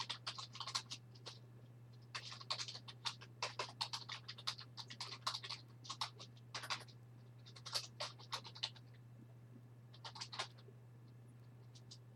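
Bursts of scratching and tearing from the packaging of a sealed case of trading-card boxes being cut and pulled open, coming in several short clusters with pauses between them.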